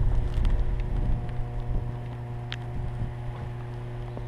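Wind buffeting the microphone, strongest in the first second, over a steady low hum, with a couple of sharp clicks.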